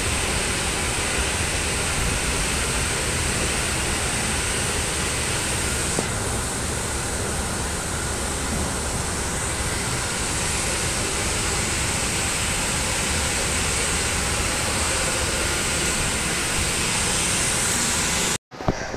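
Steady running noise heard while riding down a Mitsubishi J Series escalator, an even rushing hum with no distinct rhythm or tone, cutting off abruptly near the end.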